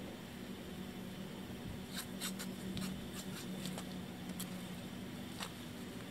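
Blue painter's masking tape being pulled off its roll: a run of short crackling rips about two to three and a half seconds in, with a couple more later, over a low steady hum.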